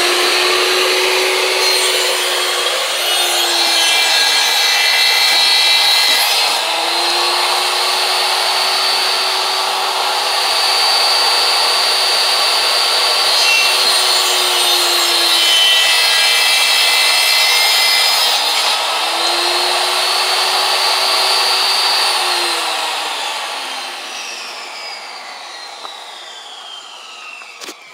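DeWalt jobsite table saw running with a steady whine and ripping a panel twice, the motor pitch sagging under load during each cut. Near the end it is switched off and winds down with a falling whine.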